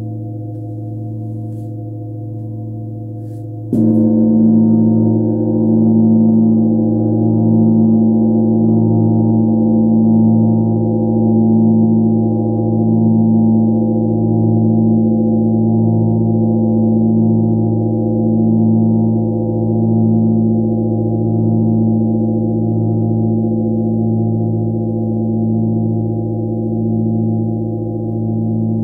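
Large bilo, a flat rectangular metal bell hung in a wooden frame, ringing with a low hum tuned to 111 Hz. It is struck once with a mallet about four seconds in and then rings on long, with a slow pulsing waver.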